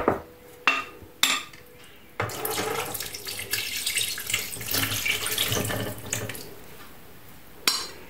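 A metal ladle clinks against the dishes three times, then marinade is poured from a glass bowl into a roasting pan over meat, splashing for about four seconds; one more clink near the end.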